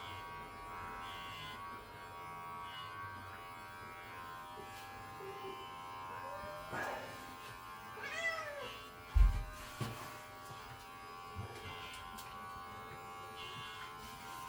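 Electric pet hair clippers buzzing steadily while the cat meows twice, about seven and eight seconds in, with a sharp thump just after.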